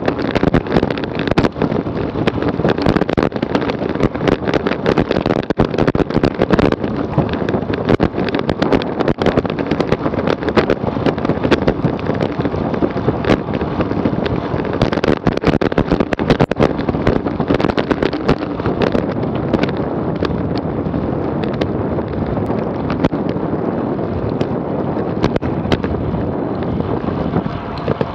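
Heavy wind noise on the microphone while riding a road bike at speed, with frequent crackles and knocks from road vibration.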